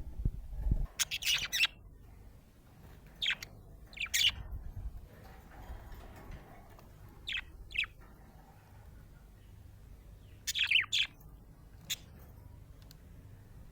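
Budgerigar chirping: short clusters of quick high chirps, about seven of them, separated by pauses of one to three seconds, the loudest pair near the end. A low rumble sounds under the first second.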